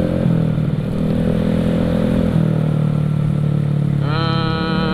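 Automatic Vespa scooter's 63-spec bore-up engine, still being run in, running steadily on the move, its pitch shifting slightly with the throttle about a quarter of the way in and again about halfway. Near the end a horn sounds, held for about a second.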